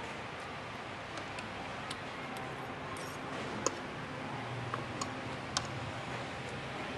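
Metal spoon and fork clicking and scraping against a ceramic plate while eating, about eight light, irregular clicks over steady room noise.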